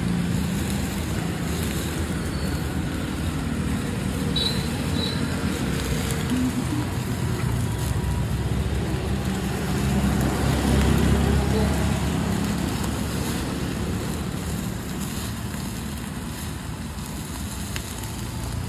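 Steady road traffic noise that swells as vehicles pass about ten seconds in, with indistinct voices in the background.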